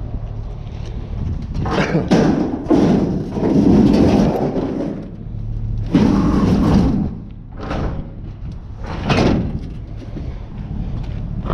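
Steady low drone of a vehicle, broken by a series of loud thuds and bangs.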